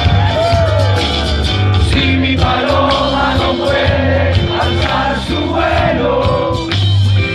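Music with singing: a song with a steady bass line and held sung notes.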